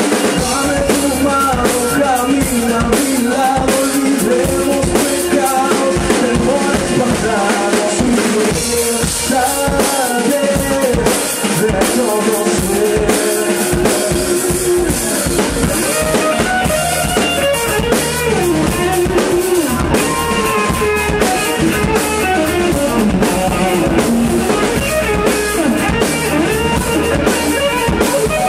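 Live band playing: drum kit, electric bass and electric guitar, with a melody line sliding up and down in pitch over a steady beat.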